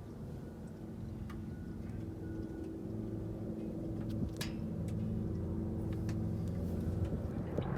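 A motor vehicle engine running steadily, slowly growing louder, with a few light clicks over it.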